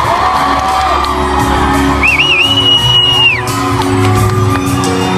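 Band playing live acoustic rock, with acoustic guitars and drums, while the audience whoops and shouts. About two seconds in, a high whistle wavers and then holds for about a second.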